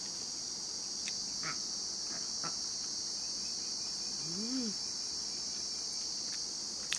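Steady high-pitched chorus of crickets, with faint chewing and a few small mouth clicks from someone eating egg rice. About four and a half seconds in, a short closed-mouth "mm" rises and falls in pitch.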